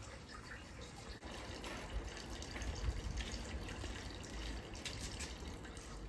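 Faint running water trickling and dripping, with small irregular splashes.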